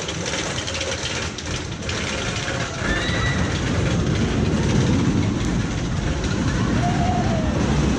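Steel shuttle-loop roller coaster train rumbling along its track and through the vertical loop. The rumble grows louder about three seconds in.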